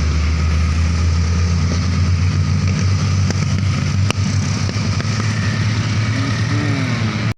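Heavy diesel truck engine running steadily with a deep hum, with a single sharp click about four seconds in.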